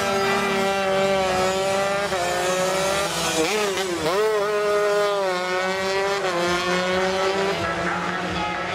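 High-revving two-stroke underbone race motorcycle engine at full song, its pitch sagging slowly, then dropping sharply a little after three seconds in and climbing again as it pulls, before sagging off once more.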